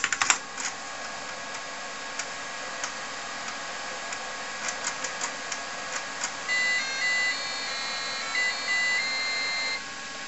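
Keystrokes on a TRS-80 Model 4 keyboard, then the floppy drive ticking and clicking as a game loads from disk. About six seconds in, a short electronic tune of high beeping notes stepping up and down in pitch plays from the computer's built-in speaker for about three seconds, then stops suddenly.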